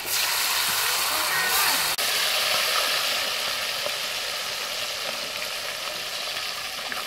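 Fish pieces sizzling as they deep-fry in hot oil in a wok over a wood fire. The sizzle is loudest in the first two seconds, as fresh pieces go into the oil, then settles to a steady hiss.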